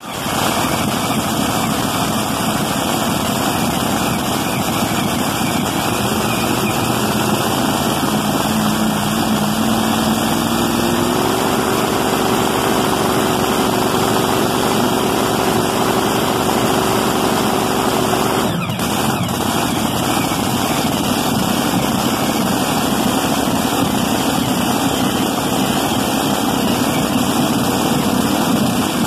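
Supercharged V8 engine of a mini modified pulling tractor running steadily through open zoomie headers. A steady whine joins about six seconds in, steps up in pitch near eleven seconds, and stops with a brief dip about nineteen seconds in.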